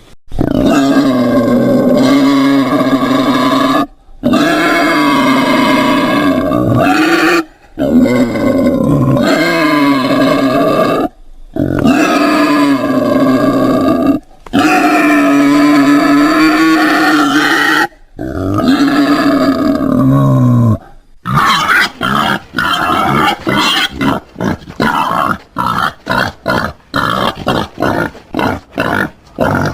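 Wild boar vocalising: six long, pitched calls of three to four seconds each, separated by short breaks, then about two-thirds of the way through a fast run of short grunts, several a second.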